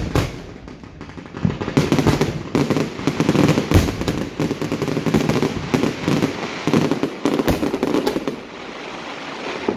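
Fireworks going off: a sharp bang right at the start, then from about a second and a half in a dense, rapid run of crackling pops and bangs, easing off near the end.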